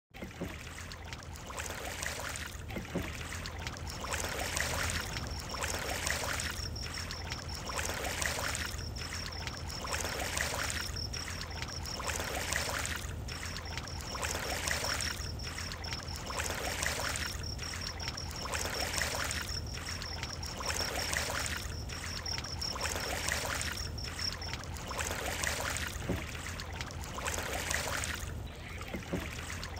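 Boat being rowed along a quiet channel, water swishing with each oar stroke about once a second. A steady high trill runs behind it from a few seconds in, stopping near the end.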